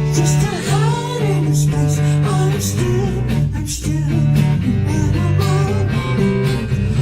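Guitar-led music with a steady beat: an instrumental stretch of a song cover.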